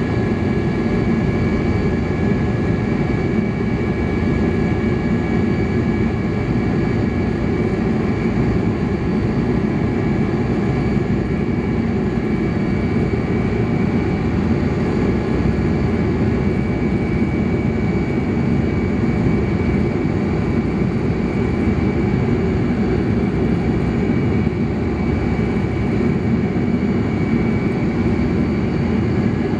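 Cabin noise of a Tupolev Tu-154B's three rear-mounted Kuznetsov NK-8-2U turbofans at takeoff power, through liftoff and the initial climb: a steady, deep rumble with a thin steady whine above it.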